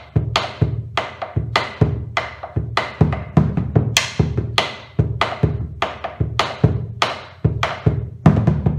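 Bombo legüero played with two wooden sticks, mixing deep strokes on the hide head with dry clicks on the wooden rim. The strokes come at an even two to three a second, with quick double strokes, in the ritmo tipo gato of the zapateo norteño with its repique.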